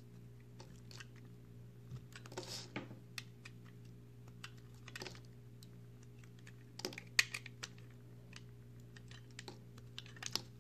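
Utility knife blade cutting into dry, crumbly recycled soap: irregular crisp clicks and crackles as flakes break away, with louder clusters every two to three seconds. A steady low hum runs underneath.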